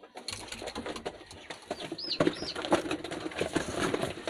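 Racing pigeons flapping and fluttering in the loft as they are caught by hand, a busy run of quick wing flaps and rustles. Two short high squeaks come about two seconds in.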